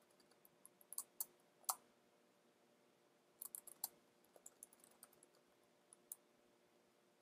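Faint, irregular keystrokes on a computer keyboard as code is typed: a few clicks at a time in small clusters, the loudest about a second or two in.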